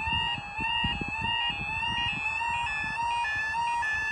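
Level crossing warning alarm (the UK 'yodel') sounding, a two-pitch tone stepping up and down about twice a second. It goes with the steady amber road light that starts the crossing sequence: a train is approaching and the barriers are about to come down.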